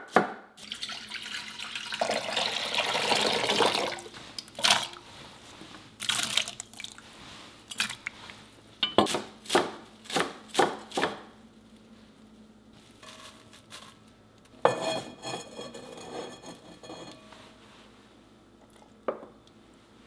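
A cleaver chopping onion and then cilantro on a wooden cutting board, in scattered sharp knocks. Early on, water pours for about two seconds, as the chopped onion goes into water to soak. A short, noisier rasp comes about three quarters of the way through.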